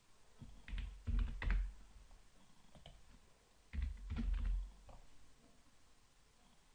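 Computer keyboard keystrokes in two short bursts, about a second in and again about four seconds in, as numbers are typed.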